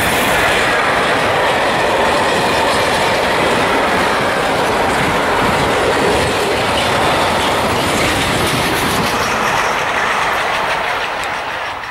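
Freight train of tank wagons rolling past, a steady rumble and clatter of wheels on the rails that fades away near the end as the last wagon goes by.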